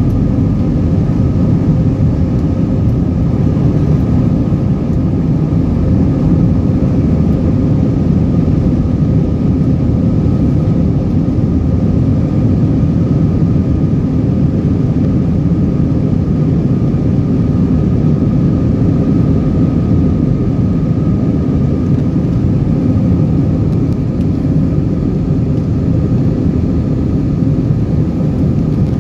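Airbus A321-200 jet engines at takeoff climb thrust, heard inside the passenger cabin as a loud, steady rumble with a steady whine over it.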